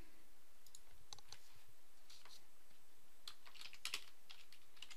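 Faint typing on a computer keyboard: scattered keystrokes in short runs with brief pauses between them.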